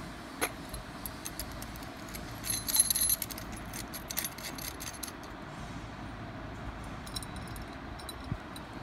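Light metallic clinking and jingling of a chrome paint spray gun's metal parts as it is handled, a cluster of clinks about two and a half seconds in and more around four to five seconds, over steady background noise.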